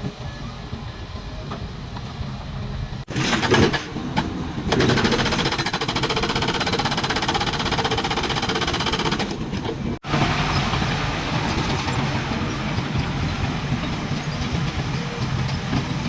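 Heavy construction machinery running: a steady engine drone with a noisy rattle above it. The sound changes abruptly about three seconds in, again near five seconds, and at ten seconds.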